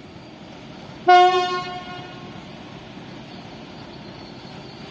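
PKP Cargo ST44 (M62-type) diesel locomotive giving one short horn blast about a second in, a single loud tone that dies away within about a second over a steady background. The horn is the warning given as the locomotive moves off light engine.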